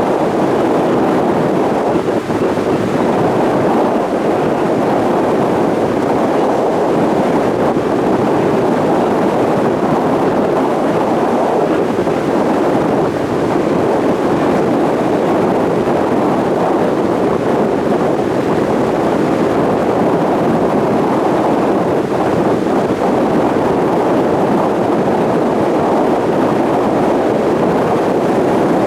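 Steady rushing noise aboard a moving ferry: wind buffeting the microphone over the hum of the boat and water rushing past.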